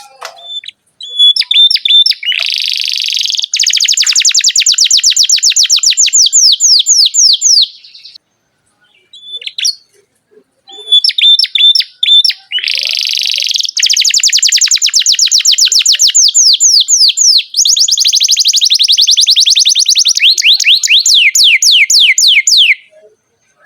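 Canary singing two long song phrases, each opening with a few short chirps and a buzzy note, then breaking into a long fast rolling trill of sweeping notes, about nine a second. A pause of about two seconds separates the phrases.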